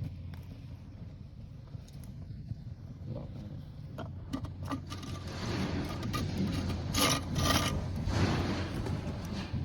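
Scraping and rubbing with scattered sharp knocks, growing louder and harsher about halfway through, over a steady low hum.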